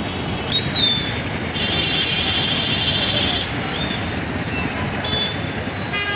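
Steady street traffic noise with vehicle engines, broken by short shrill whistle-like glides and a warbling high trill for about two seconds; a vehicle horn starts sounding at the very end.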